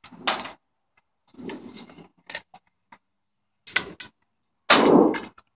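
Hand tin snips cutting the edge of a metal roofing panel to take off its sharp edge: several separate sharp cuts, the loudest about five seconds in.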